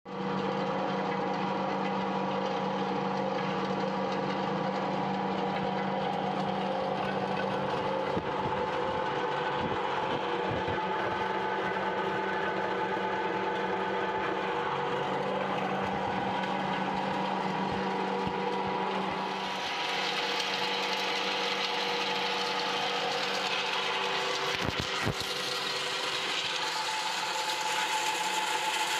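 Stainless-steel hammer mill (Fitz mill) running while it grinds dried herb leaves: a steady motor hum with scattered knocks from the material. About two-thirds through, the hum drops away and the sound turns to a brighter, hissier rush.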